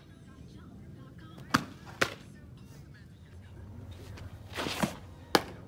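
Fastpitch softball pitching: sharp leather pops of the ball smacking into a glove, in a pair about half a second apart about a second and a half in, then a brief scraping rush and another single pop near the end.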